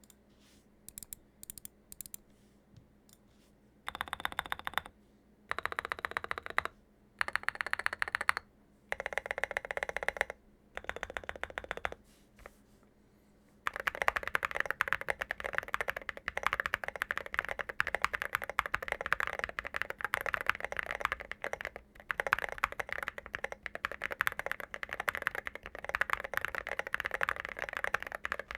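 Hotswap QK65 mechanical keyboard with lubed Tecsee Sangria linear switches, FR4 plate, case and plate foam and SA profile keycaps, giving a thocky key sound. A few single key presses, then several short bursts of rapid keystrokes, and from about halfway through, continuous fast typing.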